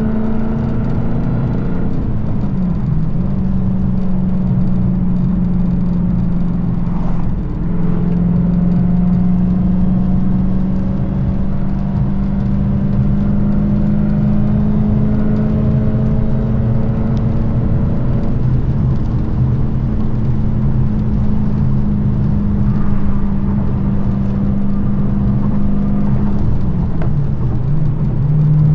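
Dodge Challenger SRT Hellcat's supercharged 6.2-litre Hemi V8, with its active exhaust deleted, running at steady cruising revs on the road. The engine note dips briefly about seven seconds in, then drops to a lower, steady note near the end.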